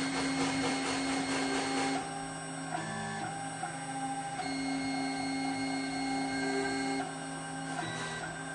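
A 4-axis CNC router milling a metal part held in its rotary fourth-axis chuck. Its stepper motors whine in steady tones that change pitch every second or two as the axes move, and a rasping cutting noise from the spindle's end mill fills the first two seconds.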